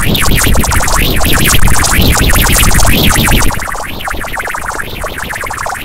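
Loud, distorted synthesizer music with arching pitch sweeps that rise and fall about once a second. It drops in level about three and a half seconds in.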